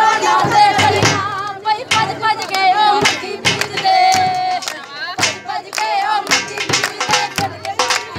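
Women singing a Punjabi folk dance song with a wavering, ornamented melody, over sharp rhythmic hand-clapping.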